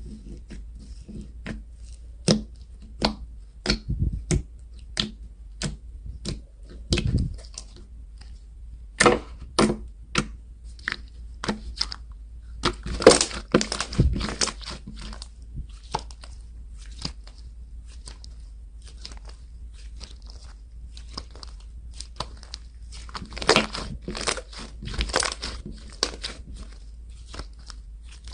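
Slime being squeezed and poked by hand, giving irregular sharp pops and crackles, with denser, louder clusters about halfway through and again near the end.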